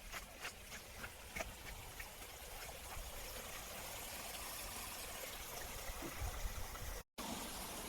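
A stream running steadily over rocks, an even rushing of water. A few fading footsteps come at the start, and the sound drops out briefly near the end.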